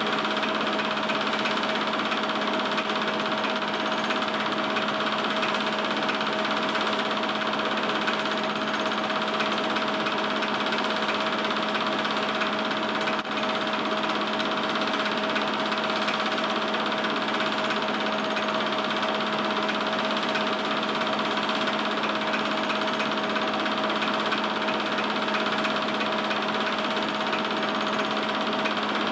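Film projector running: a steady mechanical whir with a constant hum, the sound of the old film being projected.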